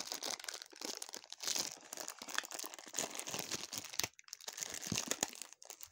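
Thin clear plastic bag crinkling and rustling as hands handle and work at it to get the gashapon figure inside out, with a brief lull about four seconds in.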